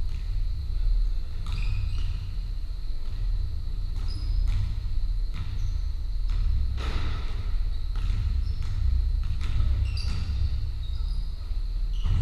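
Basketballs bouncing and trainers squeaking on a sports-hall wooden floor, with scattered thuds echoing in the hall over a steady low rumble.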